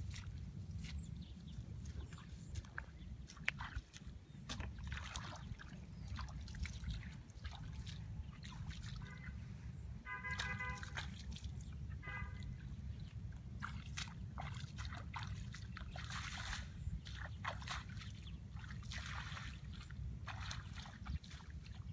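Water sloshing and splashing in short irregular bursts over a steady low rumble, with two brief pitched calls about ten and twelve seconds in.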